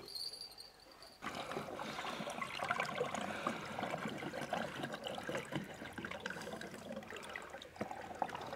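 Water splashing and trickling around a big wels catfish being handled in the shallows, starting about a second in and running on busily with many small splashes.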